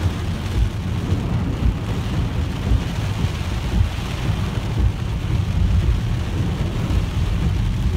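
Heavy rain on a moving car and its tyres running through water on a flooded road, heard inside the cabin as a steady rushing noise over a constant low rumble.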